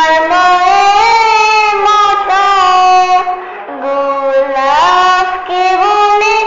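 Solo female voice singing a Bengali Islamic gojol, holding long notes that slide between pitches, with a short breath about three and a half seconds in.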